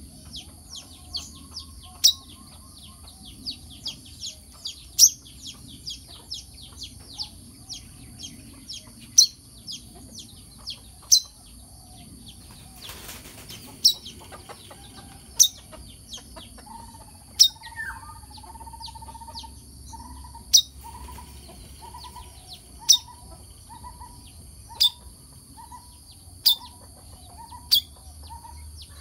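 Brown-throated sunbird calling: loud, sharp, high chips every second or two, with a quick run of chirps in the first few seconds. A steady high hiss runs underneath, and a lower short note repeats from about two-thirds of the way through.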